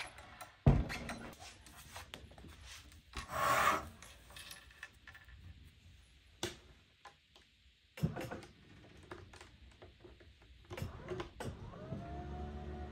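Sheets of paper and a paper trimmer being handled on a cutting mat: a sharp knock about a second in, a rasping rub of paper sliding a few seconds later, another knock, and light clicks. In the last second an electric standing desk's motor starts with a short rise in pitch and then hums steadily as the desk lowers.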